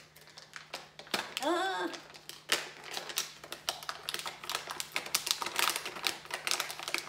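A pencil sharpener being taken out of its packaging by hand: rapid, irregular clicks and rattles. A short voiced hum comes about a second and a half in.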